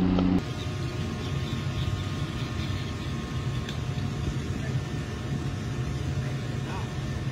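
Boat engine running steadily: a loud, deep engine drone cuts off abruptly about half a second in, giving way to a quieter, even low rumble with a faint steady hum.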